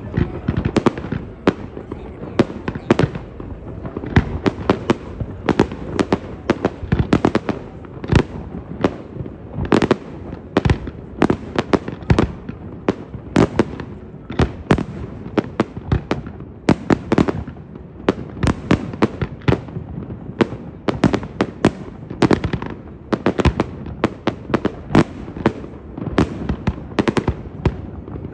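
Aerial fireworks display: a continuous barrage of shell bursts, several sharp bangs a second over a steady low rumble.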